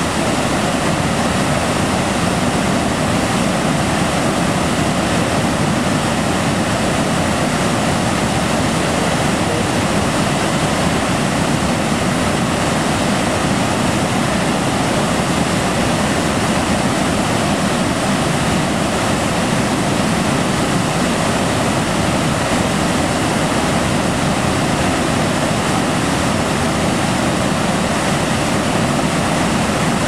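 River waterfall pouring over a rock ledge: a steady, unbroken rush of falling water.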